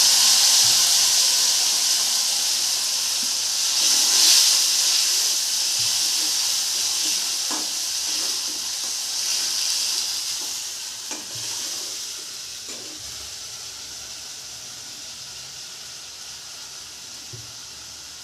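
Curry masala frying in hot oil in a pan, sizzling steadily and gradually dying down. A few light knocks, likely a spatula stirring against the pan, come near the middle.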